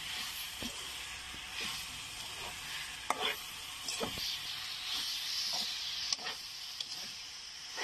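Grated coconut cooking in brown sugar syrup for bukayo, sizzling steadily in a wok while a spatula stirs and scrapes it, with scattered short clicks of the spatula striking the pan. The mixture is browning but not yet dried out.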